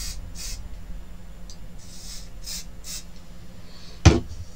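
Aerosol can of repositionable adhesive spray giving several short hissing bursts in the first three seconds, followed by a single sharp thump about four seconds in.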